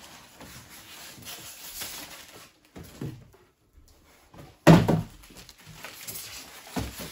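Unpacking noise: plastic wrapping rustling, then polystyrene foam packing handled and lifted out of a cardboard box, with a loud thump about two-thirds of the way through and a knock near the end.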